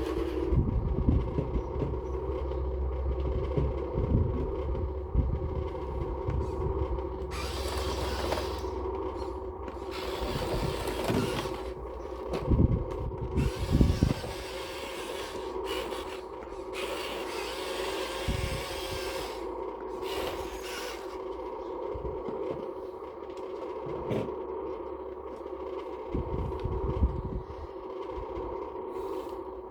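Electric motors of radio-controlled construction models whining steadily, with irregular scraping and knocking as material is dug and moved.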